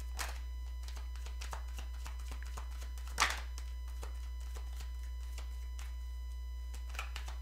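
Divination cards being drawn from the deck and handled, giving a few soft rustles and flicks; the loudest is a brief swish about three seconds in. A steady low electrical hum runs under it.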